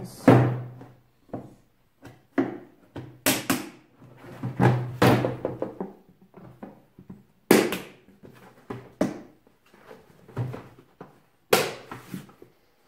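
Plastic parts of a lawnmower's grass-collection box being handled and snapped together: an irregular series of hard plastic knocks and clicks, several of them loud, with rattling and rubbing between them.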